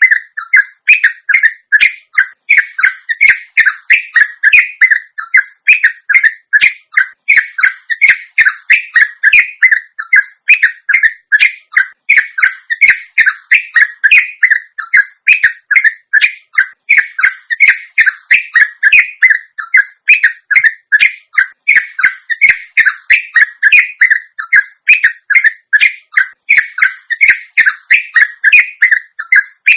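Yellow-vented bulbul (trucuk) giving its long 'ropel' chattering call: a fast, unbroken run of short, sharp notes, about three or four a second.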